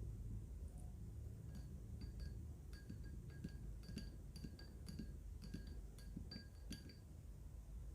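A spoon stirring honey into warm ginger water in a drinking glass, clinking lightly against the glass several times a second, each clink ringing briefly. The clinking starts about a second and a half in and stops near the end.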